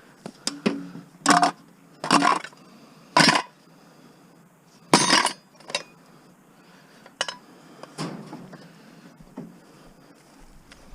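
Pieces of scrap metal being tossed onto a pile, clanking and crashing: four loud crashes about a second apart in the first five seconds, with lighter clinks between and after.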